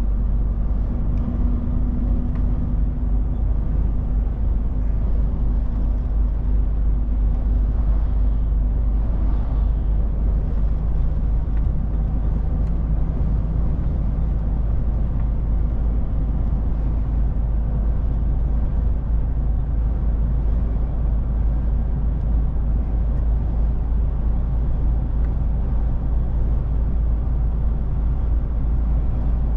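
DAF truck's diesel engine and tyre noise, a steady low drone heard inside the cab while cruising. The engine hum drops lower about ten seconds in.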